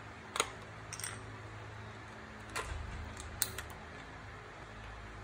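A few light, scattered clicks and taps of plastic LEGO bricks as fingers work the brick-built safe's locking mechanism, over faint room noise.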